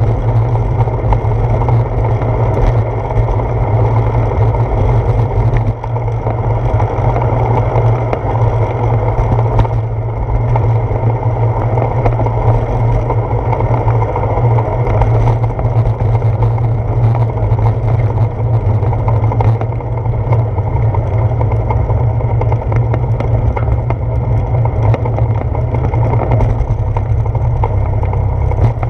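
Steady low rumble of wind and tyre noise picked up by a handlebar-mounted GoPro Hero 4 on a moving bicycle, with faint small knocks from bumps in the path.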